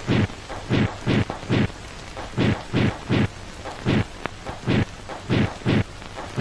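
Dubbed martial-arts fight sound effects: a rapid series of about fifteen short, sharp punch and kick hits, each a brief noisy smack, often coming in pairs.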